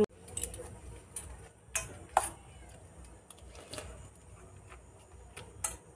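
A metal spoon scraping and clinking against a stainless steel bowl of puffed rice, a handful of separate clinks, one ringing briefly about two seconds in.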